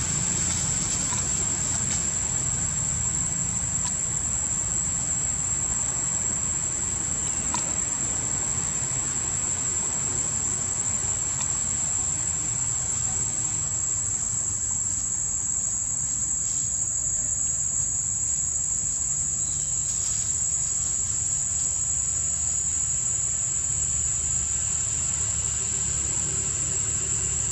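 A steady chorus of insects keeps up one continuous high-pitched drone, over a low, even rumble.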